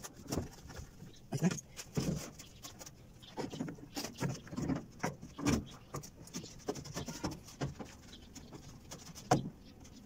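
Irregular clicks, knocks and light clatter of metal pliers and a spring hose clamp as the drain hose is worked back onto the plastic drain-pump outlet of a top-load washer.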